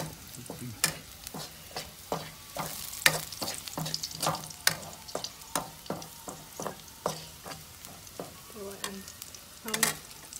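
Metal spatula clinking and scraping against a frying pan in an irregular run of strokes, about two or three a second, while food sizzles in the pan.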